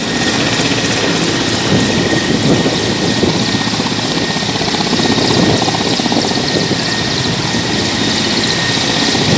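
Mi-17-type military helicopter running on the ground with its rotors turning: a steady, loud turbine whine over a rapid rotor beat.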